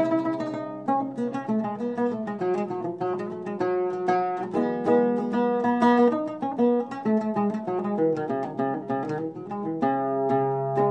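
Oud playing a slow instrumental melody of plucked notes over a steady low held tone.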